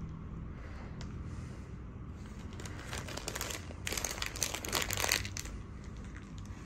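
Plastic snack packet crinkling in a run of crackly handling sounds from about two and a half to five seconds in, loudest near the end of that run.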